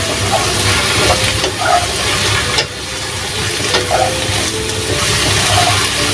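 Sliced sponge gourd sizzling in hot oil in a pan while being stirred, with a spatula scraping and clicking against the pan now and then.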